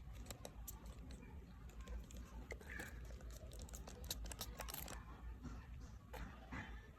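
Faint handling of product packaging: a run of small clicks and crinkles, thick for about five seconds and then only a few.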